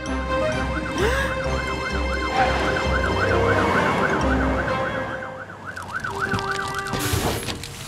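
Cartoon fire engine siren wailing in a fast rise and fall, about three cycles a second, cutting off near the end. For the first half it sits over the low, pulsing brumming of truck engines, loud enough to compete with it.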